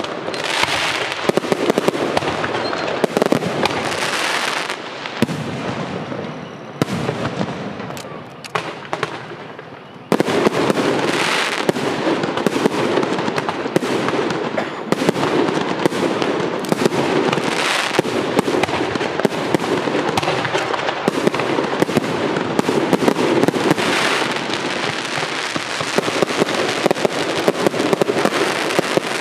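Aerial fireworks show: a dense, continuous barrage of bangs and crackling. It thins out and quietens for a few seconds, then comes back loud all at once about a third of the way in.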